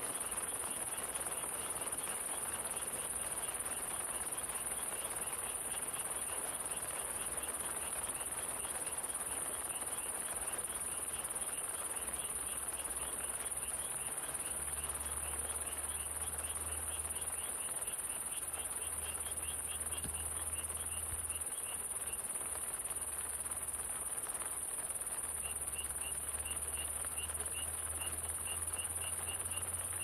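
Crickets chirping steadily in a forest, with a high, continuous insect drone and rhythmic chirps a few times a second, over a soft, even hiss of rain.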